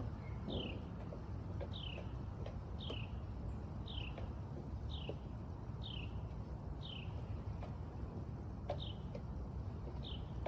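A bird repeating a short, high call that falls in pitch, about once a second, over a steady low rumble.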